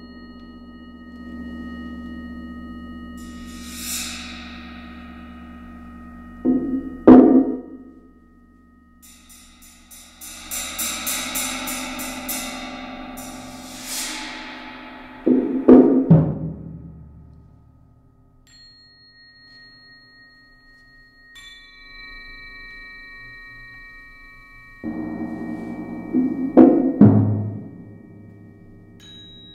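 Solo multi-percussion playing on drums and gong with mallets. Steady metallic tones ring under high shimmering swells, and three times a drum roll builds into heavy strikes, about 7, 16 and 27 seconds in.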